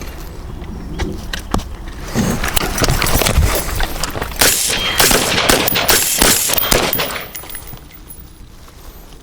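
Rapid gunfire, many overlapping shots in quick irregular succession, thickest in the middle and thinning out near the end.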